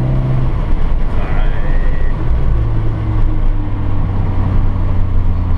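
Volkswagen Golf R's turbocharged four-cylinder engine heard from inside the cabin under way on a race track, over heavy road and wind noise. The engine note drops about half a second in, then settles into a steady drone.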